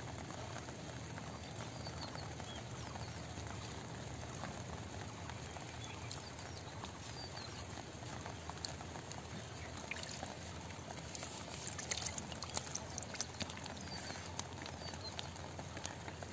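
Shallow rainwater trickling along a muddy field channel, a steady wash, with a short run of sharp splashes about eleven to thirteen seconds in.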